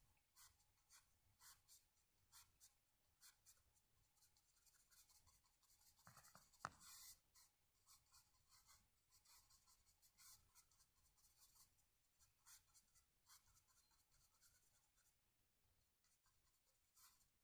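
Faint scratchy strokes of a stiff bristle paintbrush dabbing and dragging paint across the painting surface, several strokes a second in irregular runs. One louder short click about six and a half seconds in.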